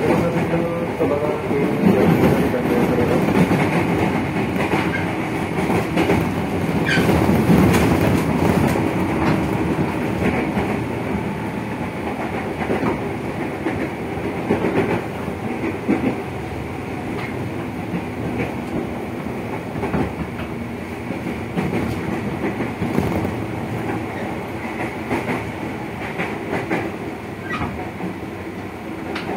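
Running noise heard from inside a JR 205 series motor car (MoHa 205-277) under way: traction motors and gearing humming over the rumble of steel wheels, with wheels clicking over rail joints. Loudest in the first third, then easing off toward the end.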